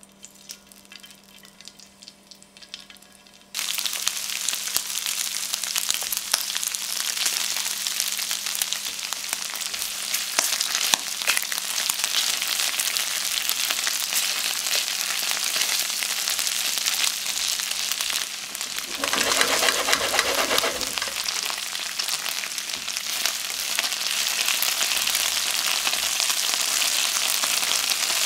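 Thin slices of marinated beef frying in hot oil in a pan: after a few faint clicks, a loud steady sizzle starts suddenly a few seconds in and carries on as the meat is stirred with chopsticks. The sizzle swells briefly about two-thirds of the way through.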